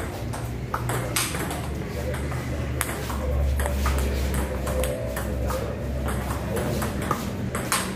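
Table tennis ball clicking back and forth off the paddles and the table during a rally, in a run of sharp, irregular clicks.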